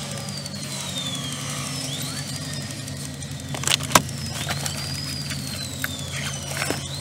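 An emergency-vehicle siren wailing, rising sharply and then falling slowly about every two and a half seconds, over the low steady hum of the idling car. A single sharp knock about four seconds in is the loudest sound.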